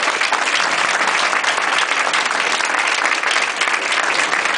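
Crowd of guests applauding steadily: many hands clapping in a dense, even patter.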